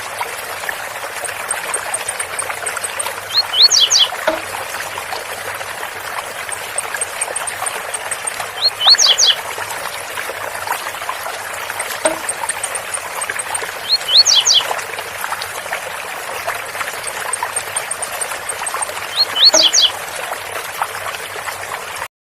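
Blue-black grassquit (tiziu) singing its short, sharp 'zel zel' song phrase four times, about every five seconds, with fainter quick high ticks in between. The steady rush of a waterfall runs underneath.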